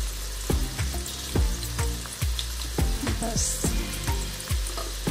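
Herbal hair oil, with hibiscus flowers and castor leaves cooking in it, sizzling in a steel pot on a gas stove, with sharp pops about twice a second.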